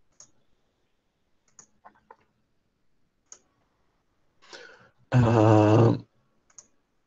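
Computer mouse clicking a few times, single sharp clicks spread over several seconds, as list-formatting options are picked. About five seconds in comes a short breath and then a held, steady-pitched male hum or filler sound of about a second, the loudest thing heard.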